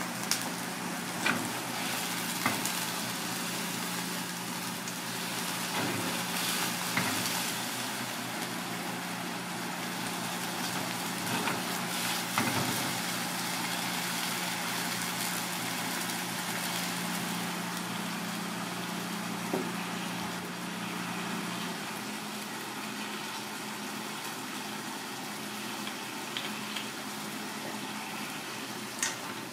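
Fish and vegetables shallow-frying in oil in a cast-iron pan: a steady sizzle with a few light taps, over a low hum that drops away about three quarters of the way through.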